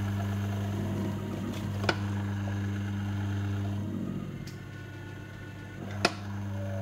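Motor of a Pessotti shotgun-shell crimping machine running with a steady hum while it crimps a cardboard 12-gauge hull, the hum dipping about four seconds in. A sharp click about two seconds in and a louder one near the end.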